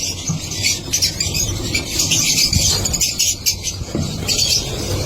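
A colony of lovebirds chattering and chirping together, a dense, continuous high-pitched twittering of many birds at once.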